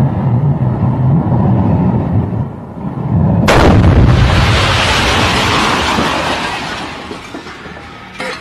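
A roaring, spark-spewing pyrotechnic charge burning on a post, then a sudden loud blast about three and a half seconds in that dies away over several seconds. A small pop near the end.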